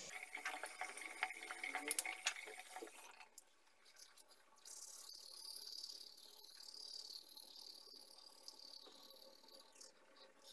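Faint clicks and rustling for the first few seconds. Then a toothbrush scrubbing teeth, a steady, faint, high scratchy sound.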